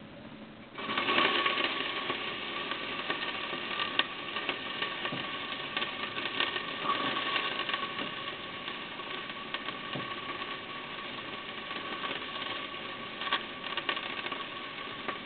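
Chopped garlic and onions hitting hot oil in a pan and sizzling, starting suddenly about a second in and frying steadily after, with a few sharp clicks.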